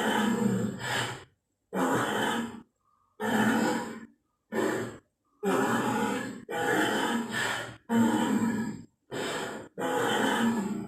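Dinosaur sound effects for Pachyrhinosaurus: a string of about nine short, breathy grunting calls, each under a second and a half long, with sudden silent gaps between them.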